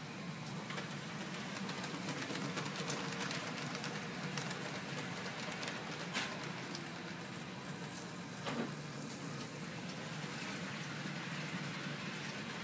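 HO-scale model trains running on the layout's track: a steady whirr full of fine clicking from wheels over the rails. Two sharper clicks come about six and eight and a half seconds in.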